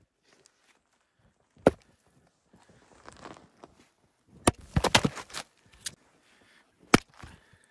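Splitting a firewood round with an axe on a chopping block. A sharp wooden knock comes about one and a half seconds in, then a heavy axe blow about four and a half seconds in, followed by a quick run of cracks as the round splits, and another sharp knock near the end. Soft crunching steps in the snow fall between the strikes.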